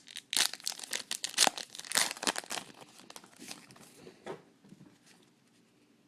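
A trading-card pack wrapper being torn open and crinkled: a burst of crackling and tearing for about two and a half seconds, thinning to a few light rustles.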